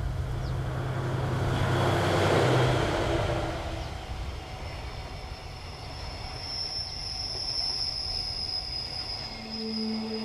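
Train passing close by, loudest about two and a half seconds in, its low running tone gone by about three and a half seconds. A high, steady whine lingers as the train recedes.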